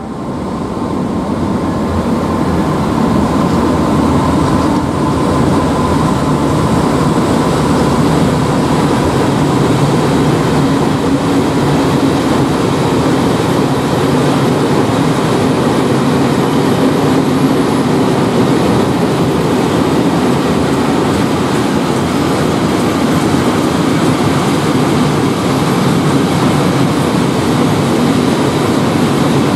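A long freight train of covered hopper wagons, hauled by a class 131 electric locomotive, rolling past on the rails as it pulls in to stop, with steady wheel-on-rail running noise that swells in over the first couple of seconds.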